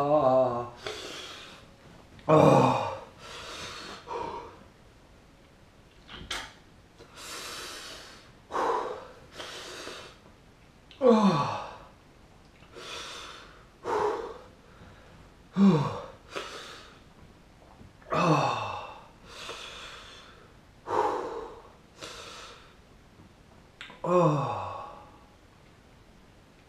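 A man breathing hard through the burning pain of a superhot chilli: a run of sharp in- and out-breaths a couple of seconds apart, several exhales carrying a voiced sigh that falls in pitch.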